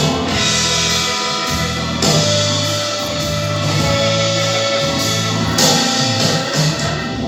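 Music with sustained instrument tones and bass notes that change every second or two.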